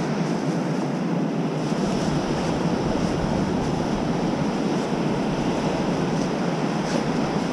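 Steady rush of surf breaking on the beach in a rough sea, with wind noise on the microphone.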